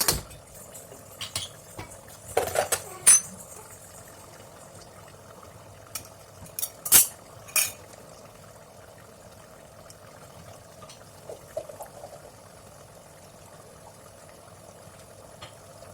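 A spoon clinking and scraping against a bell-metal uruli in scattered strokes while thickening chicken curry simmers in it.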